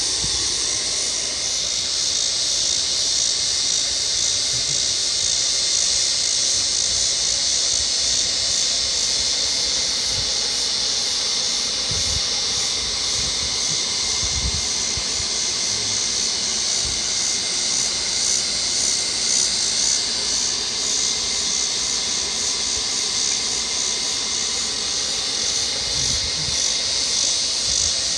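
Dense chorus of cicadas ("locusts") buzzing steadily in a high-pitched, slightly pulsing drone, with a faint steady hum lower down.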